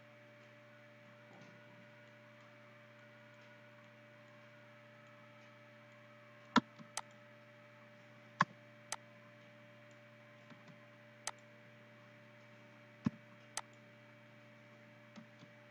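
Computer mouse clicks, about seven sharp clicks in the second half, several in pairs about half a second apart, over a steady low hum.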